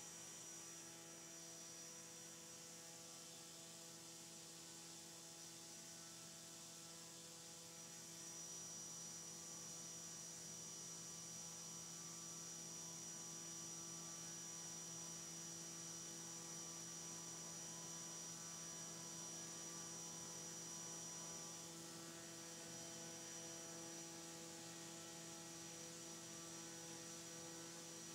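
Drone-scale propeller on a test stand, driven by a brushless electric motor at a steady 5000 RPM, making a faint steady hum with a thin high tone above it. It is slightly louder from about eight to twenty-one seconds in.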